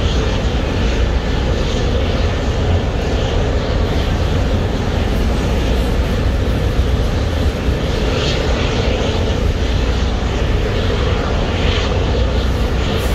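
Steady, loud drone of heavy machinery, deepest in the low end, with a constant rushing noise over it and no breaks.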